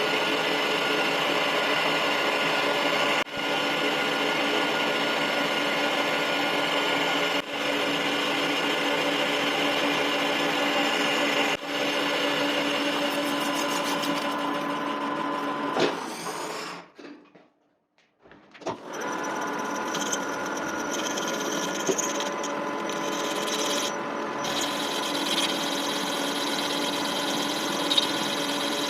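Lathe running with a steady motor and gear whine made of several fixed tones. About two-thirds of the way through, the sound falls away to near silence for a moment, then the lathe resumes.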